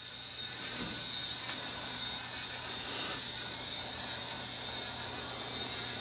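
SwitchBot Curtain robot's small electric motor running steadily as it drives along the curtain rod, pulling a heavy curtain open: a steady mechanical whir with a thin high whine.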